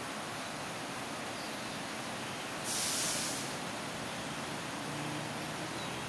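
Steady outdoor background hiss, with one short, sharper hiss lasting under a second near the middle and a faint low hum near the end.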